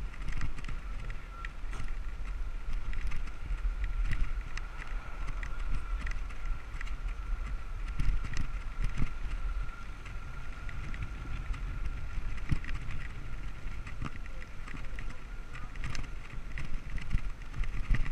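Wind rushing over a bicycle-mounted action camera's microphone while riding on a road bike, with a low road rumble and scattered short knocks from bumps in the road. A faint, steady high whine runs underneath.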